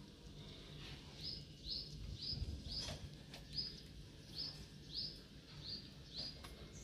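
A small bird chirping a short high note over and over, about two to three times a second, with a few faint clicks underneath.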